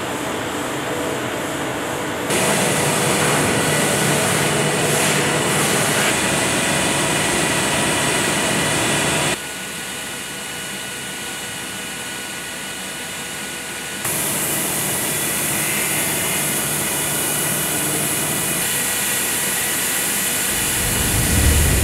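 CNC machining centre finish-milling C55 carbon steel with a barrel-shaped end mill: a steady high hiss with several steady whining tones. It steps louder about two seconds in, drops quieter about nine seconds in, and comes back louder about fourteen seconds in.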